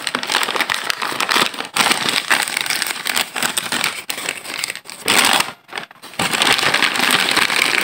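Takeaway burger wrapping crinkling and rustling as hands pick at its sticker seal and unfold the paper, with a brief lull a little past the middle.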